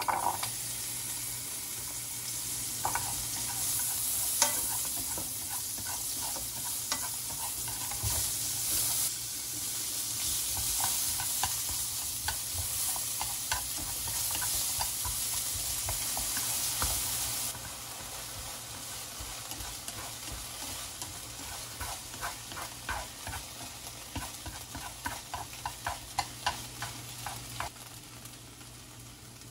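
Butter, then sliced onion and garlic, sizzling in a nonstick frying pan while being stirred with wooden chopsticks, with scattered clicks. About two-thirds of the way through the sizzle drops suddenly to a quieter level, and a quick run of clicks follows.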